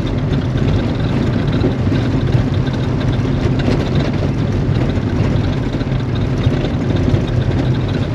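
Steady engine and road noise heard from inside a moving 4x4's cab, a constant low rumble.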